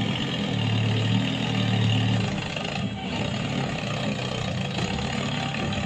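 Mini tractor's motor running steadily, with a stronger low hum during the first couple of seconds.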